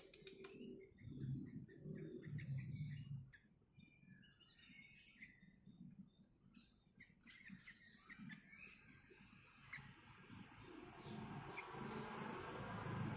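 Sooty-headed bulbul (kutilang) giving short, scattered chirps over the first nine seconds or so, faint, over a low rumble. From about ten seconds in, a steady rushing noise grows louder and covers it.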